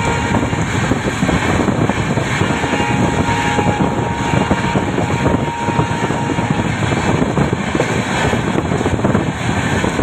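Express passenger train running at speed, heard from an open door or window of a coach: a steady rush of wheels on the rails mixed with wind on the microphone. A faint thin steady whine runs through the first six seconds or so.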